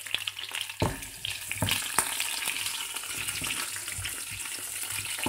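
Chopped green peppers sizzling in hot oil in a non-stick frying pan, with a steady hiss. A spatula stirs them, knocking against the pan a few times in the first couple of seconds.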